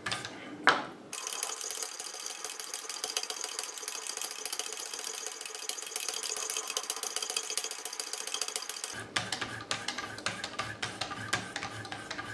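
Leather strops on a Wicked Edge guided sharpener's arms being stroked in quick alternating passes along a knife edge, loaded with diamond paste, giving a fast, even run of light clicks and rubbing.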